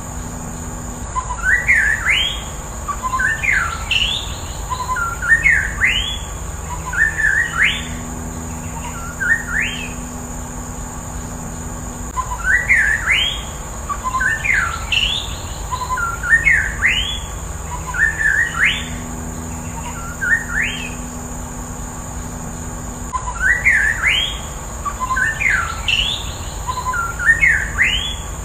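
White-rumped shama singing: phrases of quick rising whistled notes, with the same run of phrases repeating about every eleven seconds.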